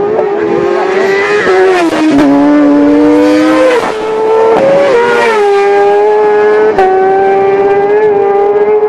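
Racing motorcycle engines running at high revs as a bike passes close. The engine note dips and climbs again several times, and a second engine note overlaps for a couple of seconds early on.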